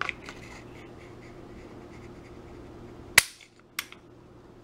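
Beretta 92 Elite LTT pistol dry-fired in single action by pulling its trigger with a spring trigger-pull gauge. A light click at the start, then about three seconds in the hammer falls with a sharp metallic snap, followed by a lighter click. The trigger breaks at about 3 pounds 12 ounces.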